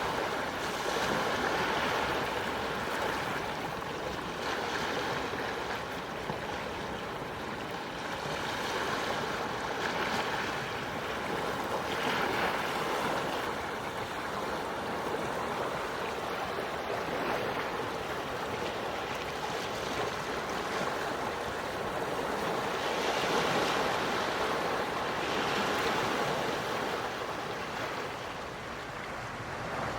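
Gentle sea waves washing ashore, a steady wash that swells and eases every few seconds.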